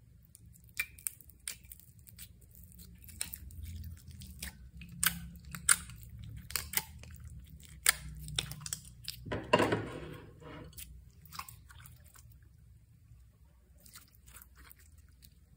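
Slime being worked by hand: scattered sharp sticky clicks and pops, with a denser squish lasting about a second around ten seconds in.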